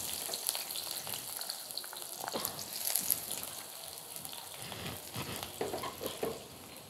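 Sliced onions sizzling and crackling in hot oil in a wok as handfuls are added, the first stage of frying them into crisp beresta.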